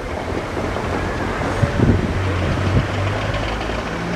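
Class 37 diesel locomotive's English Electric engine running as it draws slowly closer hauling coaches: a steady low drone, strongest in the middle. Gusts of wind buffet the microphone now and then.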